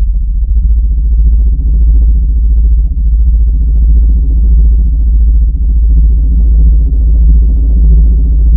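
Cinematic drone sound effect: a loud, deep synthesized tone held without a break, with fainter steady tones above it and a gentle, regular swell in loudness.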